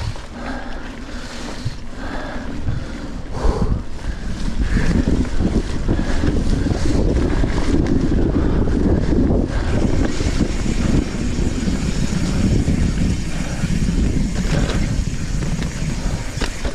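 Wind buffeting an action camera's microphone while a mountain bike rolls over a wet, sandy trail, with scattered clicks and knocks from the bike. The rumble grows louder about four seconds in and stays loud.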